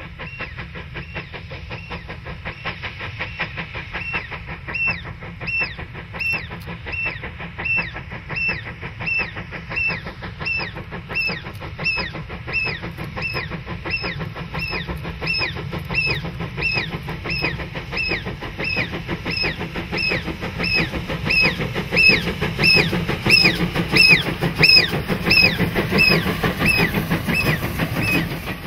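South African Railways Class NGG11 narrow-gauge Garratt steam locomotive working a train, its exhaust beating in a steady rhythm of about two a second over steam hiss and running noise. It grows louder as it approaches and passes close by near the end.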